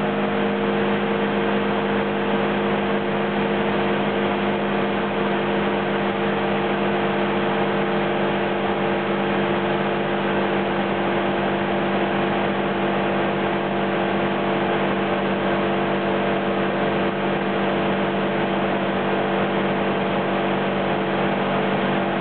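Isuzu D-Max engine running steadily at raised revs, its pitch and level unchanging, while its alternator is loaded on test.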